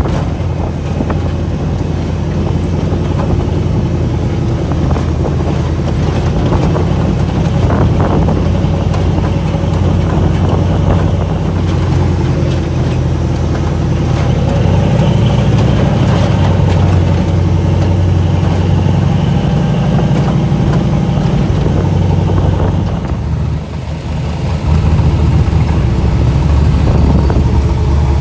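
Off-road vehicle engine running steadily while driving, heard from on board. It eases off briefly near the end, then picks back up.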